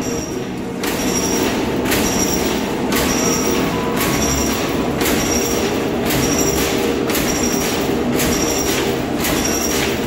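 Cable tray punching machine perforating sheet steel: a sharp, ringing punch stroke about once a second over the steady hum of the running machine.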